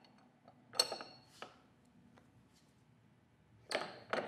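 Steel spanner wrench clinking against the ER32 collet nut of a CNC router tool holder held in its tightening fixture, as the nut is loosened. A few short metallic clinks with a brief ring, about a second in and again near the end.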